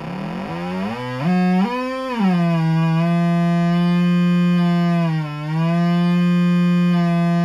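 Skar 8-inch slim subwoofer, newly fitted in a factory Acura TSX Wagon enclosure, playing a test tone close to full volume. The buzzy tone climbs in pitch in steps over the first two seconds, holds steady with a brief dip about five seconds in, and cuts off suddenly at the end.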